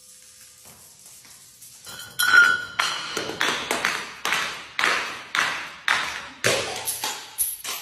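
A run of sharp cracking hits, about two a second, the first with a brief ringing ping, each dying away quickly.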